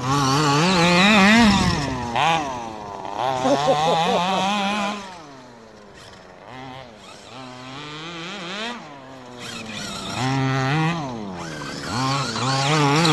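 Small two-stroke petrol engine of a 1/5-scale RC buggy revving hard and backing off again and again, its pitch climbing and falling with the throttle. It fades for a few seconds in the middle as the buggy runs farther off, then comes back loud near the end.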